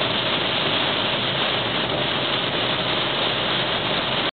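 Heavy rain on a moving car and tyres on the wet road, heard from inside the cabin: a steady, even hiss that cuts off abruptly near the end.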